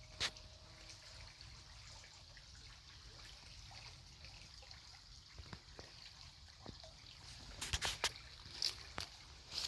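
Faint trickling water, with a sharp click just after the start and a cluster of clicks and ticks near the end.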